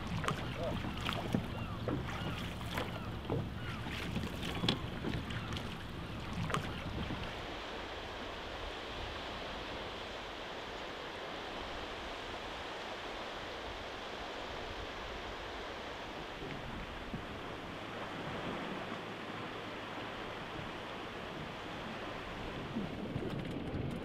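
Oar knocks and water splashes around a small inflatable rowboat through the first several seconds, then a steady wash of sea water and small waves.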